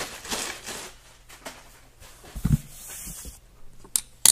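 Clear plastic packaging crinkling and rustling as it is handled, loudest in the first second, then a dull thump on the countertop and a couple of sharp clicks near the end.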